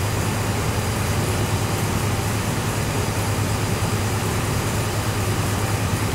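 A recycling machine running steadily under electrical load, a constant low hum under even machine noise.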